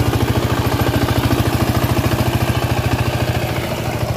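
Single-cylinder diesel engine of a two-wheel walking tractor (power tiller) running steadily under load as it drags its cage wheels and disc plough through wet, weedy mud, a fast even chugging beat. It eases slightly in loudness a little before the end.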